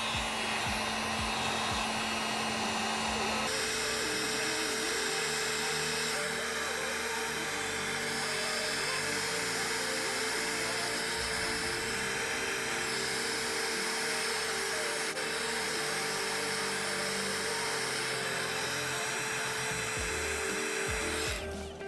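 Heat gun blowing steadily with a steady whine from its fan motor, heating a solder-seal heat-shrink wire connector; it cuts off near the end.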